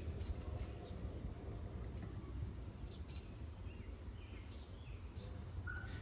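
Faint outdoor ambience: a steady low rumble with a few short, scattered bird chirps.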